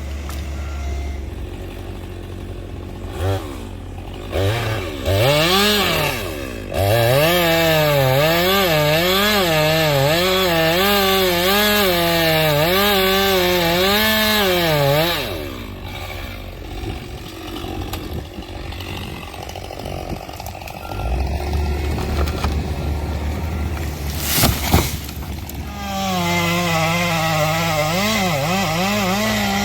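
Chainsaw idling and blipped a few times, then cutting wood at full throttle for about eight seconds, its pitch dipping and rising as the chain bites. It drops back to idle, with a couple of sharp knocks, then cuts again near the end.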